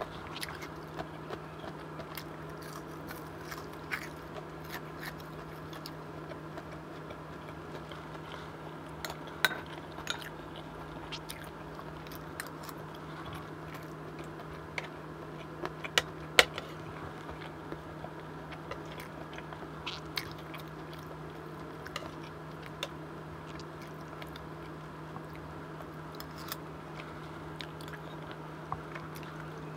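Close-miked eating of chicken curry, rice and fried breaded chicken katsu: chewing and biting with occasional crunches, and scattered sharp clinks of a spoon against ceramic bowls. A steady low hum runs underneath.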